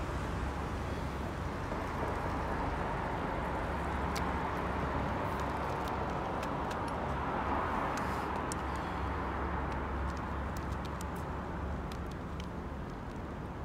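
Steady city traffic rumble, swelling about halfway through as a vehicle passes, with scattered small sharp clicks over the middle and later part.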